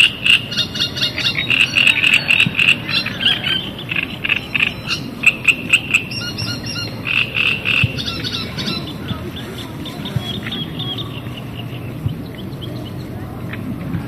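Frogs croaking in a chorus of fast pulsing calls, dense for the first nine seconds or so, then thinning out to a few fainter calls.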